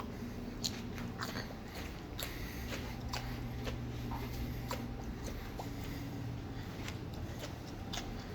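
A man chewing a fresh ghost pepper (bhut jolokia): soft, irregular crunches and wet mouth clicks over a low, steady hum.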